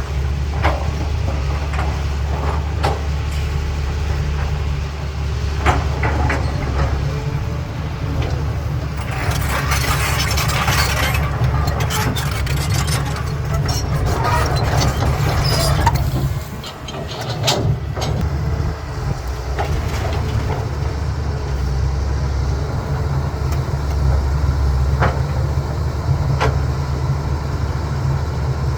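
CAT 320B excavator's diesel engine running steadily under load, with rock scraping and clattering loudest from about nine to sixteen seconds in and scattered knocks. The engine note dips briefly just after the scraping ends.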